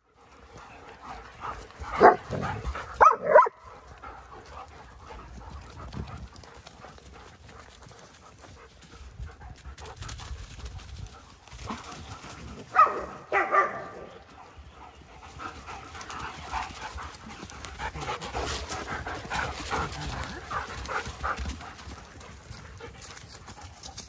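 German shepherds playing: a few loud barks about two and three seconds in and again around thirteen seconds, with panting and quieter dog noises between.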